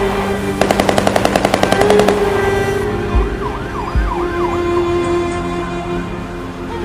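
A rapid burst of machine-gun fire, about ten shots a second, stopping about two seconds in; then a siren wailing up and down, with two deep booms, over a steady hum.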